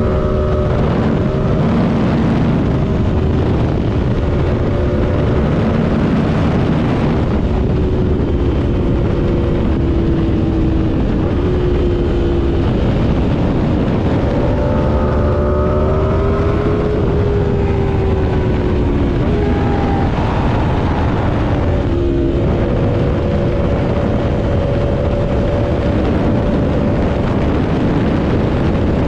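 Aprilia RSV4 sportbike's V4 engine under way at speed, its pitch rising and falling with the throttle and shifts, over heavy wind rush on the microphone.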